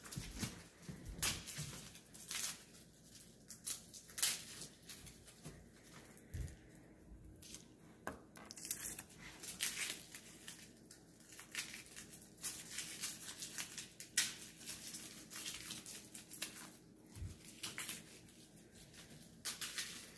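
Hands preparing fresh garlic cloves: irregular crackles and rustles of papery skins with light knocks, scattered throughout.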